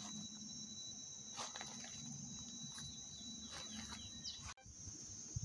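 Faint steady high-pitched insect drone with a thin whining tone, over a low hum.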